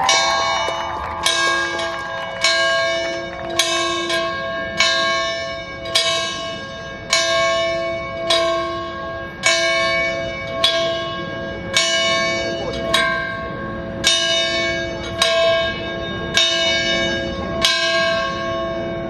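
A large ceremonial bell rung steadily, about sixteen strokes a little over a second apart, each ringing on into the next.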